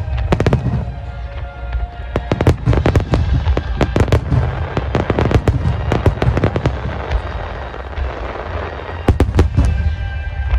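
Aerial fireworks shells bursting in rapid volleys: many sharp bangs and crackles, thickest through the middle and again in a quick cluster near the end, over a deep rumble.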